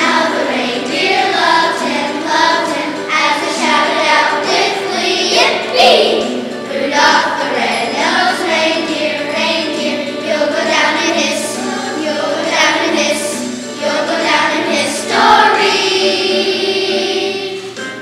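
Children's choir singing together, finishing on a long held chord that fades out near the end.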